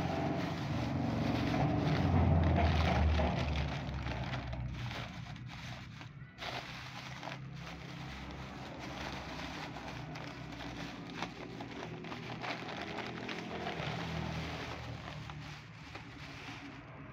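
Thin plastic bags rustling and crinkling in irregular crackles as a black plastic carrier bag is pulled open and the plastic bag of dry cat food inside is handled. A low rumble underneath is loudest about two to three seconds in.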